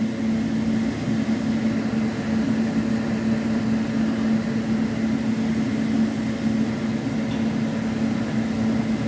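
Steady hum of an electric fan motor: an unchanging low drone with a hiss behind it.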